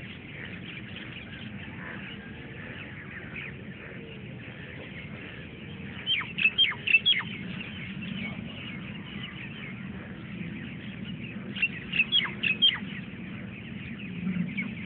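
Birds calling: two bursts of quick, sharp, downward-sliding notes, about six seconds in and again about twelve seconds in, over a steady background hiss.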